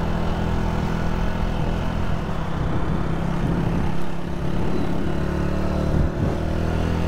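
Motorcycle engine running steadily while riding in city traffic, its low hum under a constant rushing noise.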